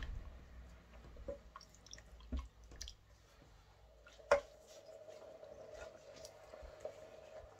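Silicone spatula stirring a wet mixture of dried fruit and tea in a stainless steel saucepan: soft squelching with scattered clicks of the spatula against the pan, and one sharper knock about four seconds in. A faint steady hum runs from then on.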